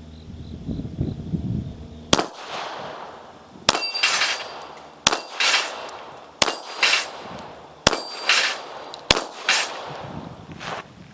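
Bulgarian Makarov pistol fired six times at a steady pace, about one shot every second and a half. Most shots are followed a moment later by the ring of a steel plate being hit.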